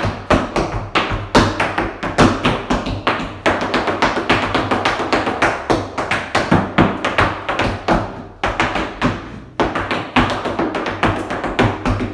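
Tap shoes striking a hard studio floor in a fast, dense run of steps from a tap combination, many sharp taps a second, danced over recorded music with a steady bass line.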